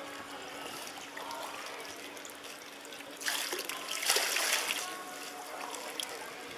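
Water splashing and trickling as plastic rubbish is lifted out of the water by hand over the side of an inflatable dinghy, loudest from about three to five seconds in.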